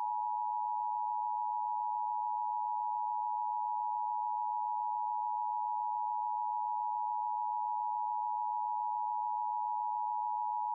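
Emergency broadcast attention signal: a steady, unbroken alert tone, the two-tone alarm that precedes emergency instructions.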